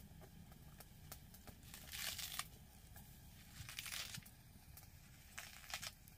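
Leafy greens being torn and stripped from their stems by hand: three short rustling tears about two, four and near six seconds in.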